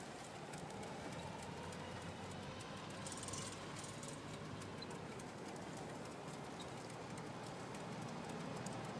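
Footsteps on a woodland path, a run of small irregular clicks over a faint steady outdoor background noise.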